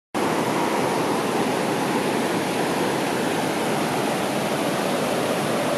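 Tiroler Ache, an alpine river running high with a lot of water, rushing over gravel rapids: a steady, even rush of water.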